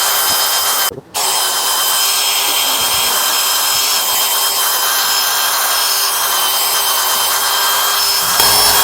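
Power drill spinning a foam polishing pad with polishing paste against a plastic headlight lens: a steady motor whine over a hissing rub. It cuts out for a moment about a second in, and a deeper rumble joins near the end.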